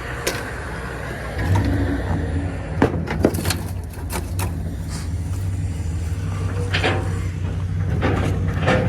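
Sharp metal clinks and knocks from hand tools working an air-conditioner coil apart, over a steady low hum like a running engine that swells about a second and a half in.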